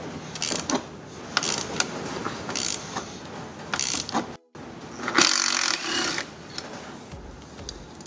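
Ratchet wrench with a Torx 50 bit clicking in short bursts as it turns out a very tight seat belt anchor bolt. The sound drops out briefly about halfway, then a longer run of ratchet clicking follows.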